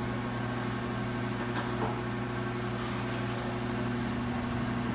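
Steady machine hum at an even pitch, with a couple of faint taps about a second and a half in.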